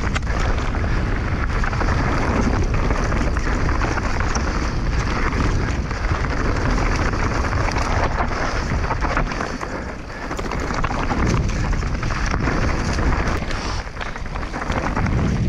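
A mountain bike riding down a dirt trail: wind rushes over the microphone over steady tyre noise, with frequent knocks and rattles from the bike.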